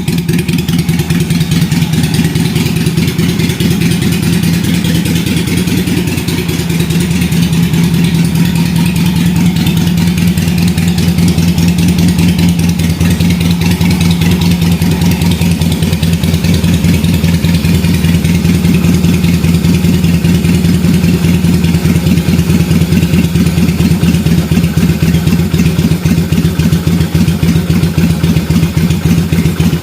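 V-twin motorcycle engine idling steadily, its exhaust pulsing evenly and loudly.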